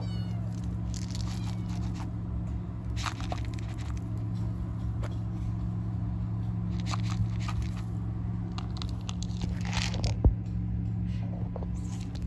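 Kittens chewing dry kibble, a scattered crunching and crackling over a steady low hum, with one sharper knock about ten seconds in.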